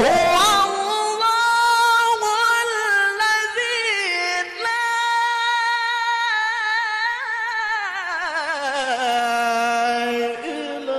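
A male qari's solo voice in melodic Quran recitation (tilawah), holding long, high, ornamented notes with a fast waver. About eight seconds in it slides down to a lower held note.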